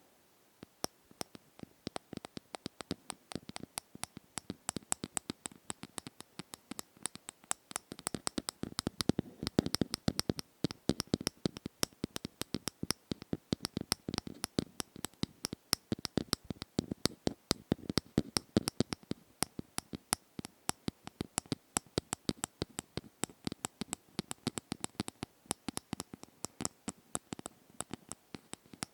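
ASMR tapping: quick, irregular taps, several a second, starting about a second in, without a steady beat.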